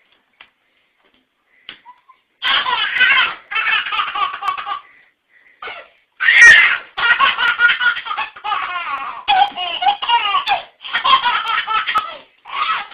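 A baby laughing hard in a string of repeated bursts, starting a couple of seconds in and peaking about halfway through.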